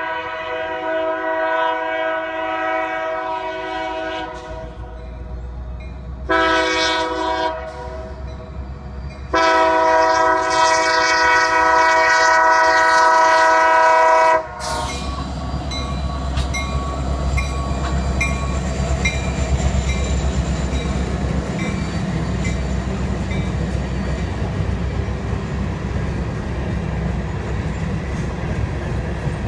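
Air horn of a Union Pacific EMD SD70M locomotive sounding for a grade crossing, several tones at once: a long blast, a short one, then a long blast that cuts off as the locomotives reach the crossing. The two SD70Ms' diesel engines and the ballast cars then roll past, the wheels clicking steadily over the rail joints.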